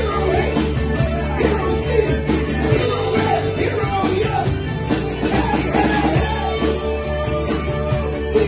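Rock band playing live: drum kit, bass guitar, electric and acoustic guitars, with a man singing lead.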